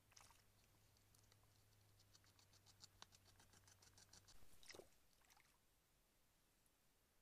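Very faint: a beaver gnawing and chewing on a stick, a quick run of soft clicking bites about eight a second, with a short louder scrape near the end.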